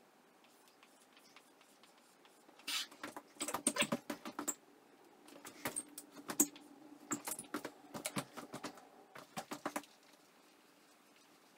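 Dry-erase marker squeaking and tapping on a whiteboard as words are written, in several short bursts with pauses between strokes.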